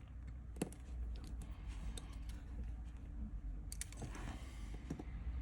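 Small precision tools clicking and tapping on the iPhone XR's tiny internal screws and metal brackets, a handful of scattered light clicks over a steady low hum.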